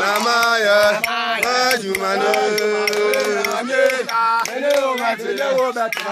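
Several voices singing a chant together, with notes held and sliding, over a steady sharp beat of about three strokes a second.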